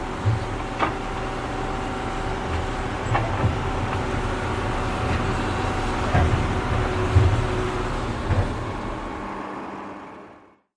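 Tractor engine running steadily while digging, with occasional knocks and thumps from the work. It fades out near the end.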